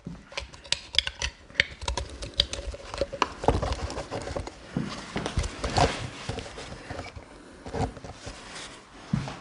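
Footsteps and handling noise on a hard floor: irregular clicks, taps and soft thumps as someone moves about a room.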